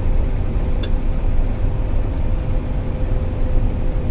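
Combine harvester running steadily while cutting soybeans: a loud, even low rumble with a steady hum above it and one faint tick about a second in.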